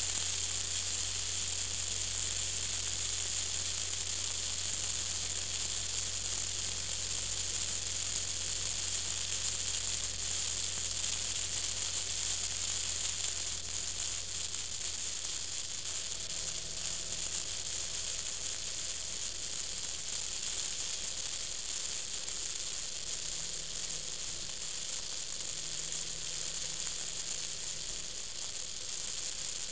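Steady, bright hiss of wind and road rush picked up from a moving vehicle, over a low engine drone that fades about halfway through.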